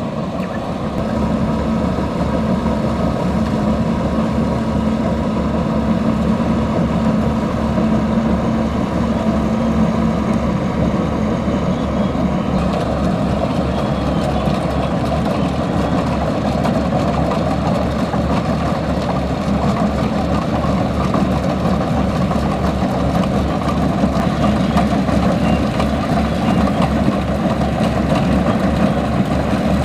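Kubota DC-105X rice combine harvester's diesel engine running steadily, getting a little harsher in tone about twelve seconds in.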